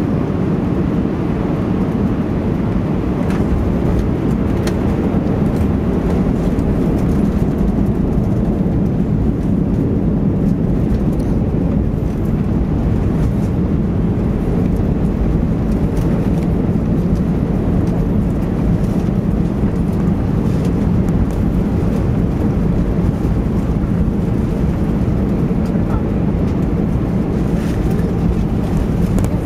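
Steady cabin noise inside an Airbus A320 rolling out on the runway after touchdown: engine and airflow rumble with a constant low hum, and a few faint clicks.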